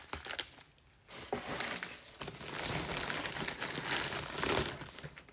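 Packaging crinkling and rustling as items are handled and pulled from a box, starting about a second in after a brief lull.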